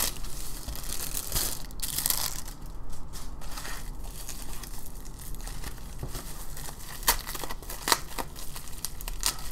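Plastic mailer packaging crinkling and crackling under the hands as a white bubble mailer is drawn out of a black poly mailer bag and handled. The crackling is irregular, with a few sharper crackles near the end.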